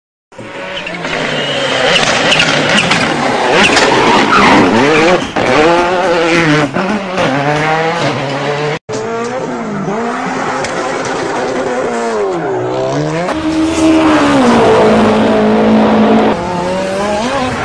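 Vehicle engine revving up and down with tyre squeal, cut off abruptly about halfway and followed by more revving.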